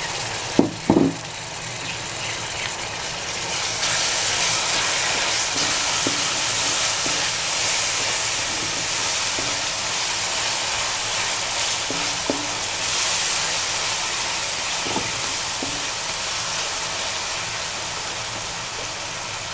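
Chopped tomatoes frying in oil with onion and spice masala in a metal wok, sizzling steadily while a wooden spoon stirs them. There are two sharp knocks about a second in, and the sizzle grows a little louder about four seconds in.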